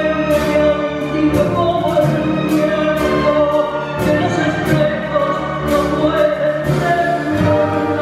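A woman's voice singing a tango song with a string-led orchestra accompanying her, the violins holding long notes beneath the vocal line.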